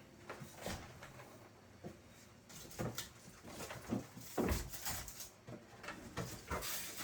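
Scattered knocks and clunks of kitchen items and a door being handled. The loudest is a low thud about halfway through.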